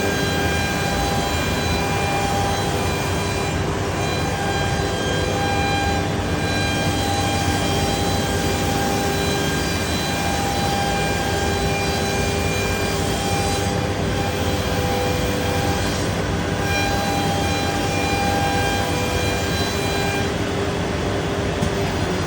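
Biesse Rover K CNC router running while it mills wood: a constant rush of noise with the spindle's steady whining tones over it, the tones shifting and dropping out every few seconds as the cut changes.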